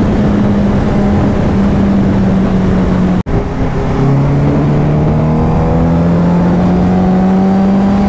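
Honda CBR 650F's inline-four engine running at steady revs with wind rush while riding. After a split-second dropout about three seconds in, the engine note comes back lower and climbs steadily as the bike accelerates.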